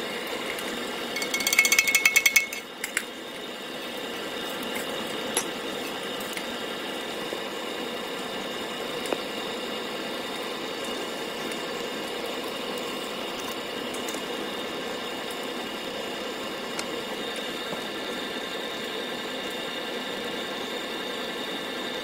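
Glass furnace at about 1,200 °C running with a steady drone from its burner and blower while the old glass is drained from the pot. About a second in, a loud rapid rattle lasts about a second and a half, and a few single sharp clicks follow later.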